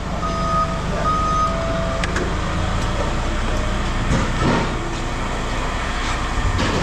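A vehicle's reversing alarm beeps a few times and stops about a second and a half in, while its engine keeps running with a steady low hum.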